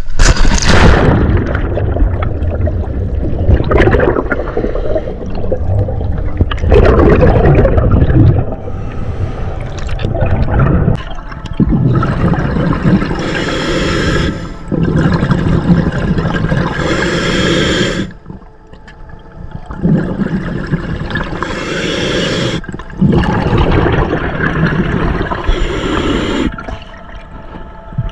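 A scuba diver enters the water with a splash, then the sound is underwater water noise against the camera housing. In the second half the diver's exhaled bubbles burst out from the regulator about every four seconds, between quieter breaths.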